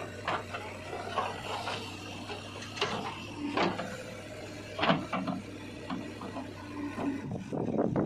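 JCB 3DX backhoe loader working its digging arm and bucket of soil: a low steady engine hum under a run of sharp knocks and clicks, the loudest about three and five seconds in. The engine sound grows louder and fuller near the end.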